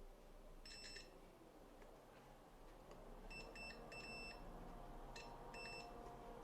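Multimeter continuity beeper giving about five short beeps as the probes touch points on a circuit board. Each beep signals a short circuit between the probed points.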